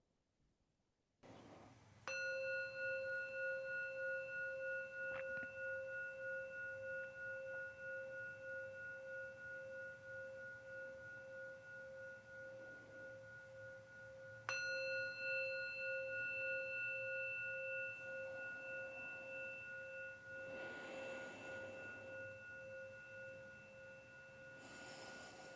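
Meditation singing bowl struck twice, about twelve seconds apart, each strike ringing on in a steady, slowly fading tone. It is the bell that closes a guided meditation.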